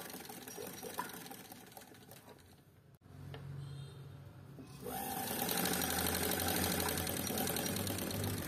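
Domestic sewing machine stitching cotton fabric. After a quieter first few seconds, it starts running about five seconds in and keeps up a steady, rapid stitching rhythm.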